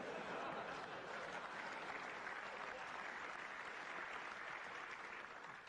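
A large audience applauding, a dense steady clapping that dies away near the end.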